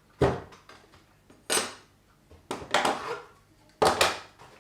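Metal objects clattering and knocking: four or five separate sharp clanks, each with a short ring.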